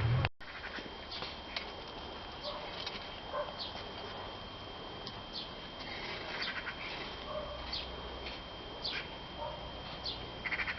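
Small birds chirping: short high chirps scattered irregularly, over a steady thin high-pitched whine.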